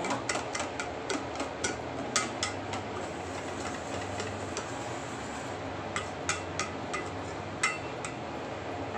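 Wire whisk stirring risen, fermented batter in a stainless steel bowl, the wires clicking against the metal side: a quick run of clicks, about three a second, in the first three seconds, then a few scattered taps later on, over a steady low hum.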